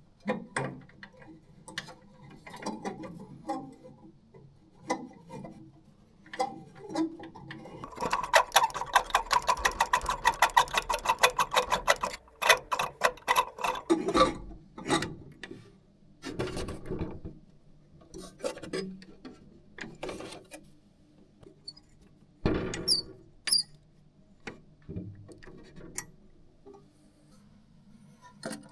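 Hand tools and metal lamp fittings clicking and knocking as a xenon lamp is fitted into a cinema projector's lamphouse, over a low steady hum. About eight seconds in comes a run of rapid, even clicking lasting some four seconds, like a ratcheting tool being turned.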